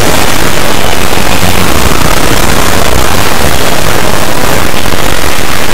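An Emergency Alert System recording, sped up and distorted into an extremely loud, steady wall of noise like static. The alert tones are no longer heard as a pitch.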